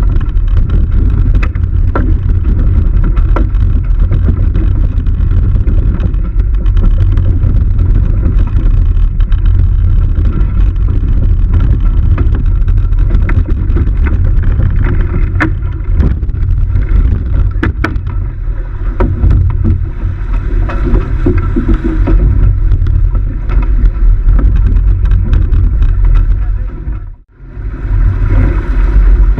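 Loud, steady rumble of wind buffeting the microphone aboard a J80 sailboat under way, with water noise and scattered knocks and clicks. The sound drops out sharply for a moment about 27 seconds in, then resumes.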